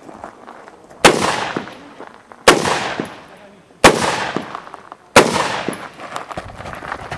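Four rifle shots, about a second and a half apart, each followed by a long echo that trails off.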